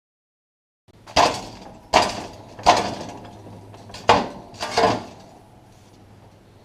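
Five sharp knocks of metal being struck, the first three about three-quarters of a second apart and the last two after a short pause, each ringing off briefly.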